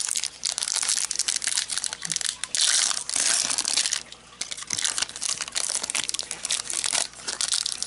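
Foil booster-pack wrapper crinkling and crackling irregularly in the hands as it is handled and torn open.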